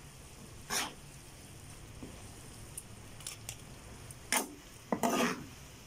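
Metal tongs and a wooden spatula tossing instant noodles in a frying pan: a few short scrapes and clacks, one about a second in and a cluster near the end, the last one the longest.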